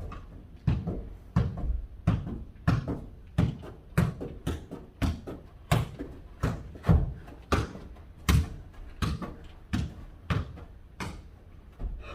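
A ball being kicked and bouncing on a hard floor in a fast rally: a run of sharp thumps, about one to two a second, ringing a little in the room.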